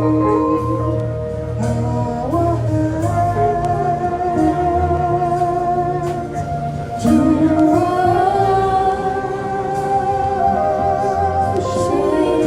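Slow gospel worship music: sustained chords under a voice singing long held notes with a slight waver, moving to a new note every few seconds.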